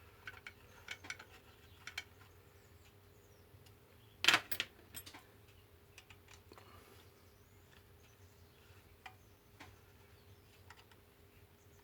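Light clicks and taps of hand tools and small metal parts being handled during bench work, with one sharper knock about four seconds in.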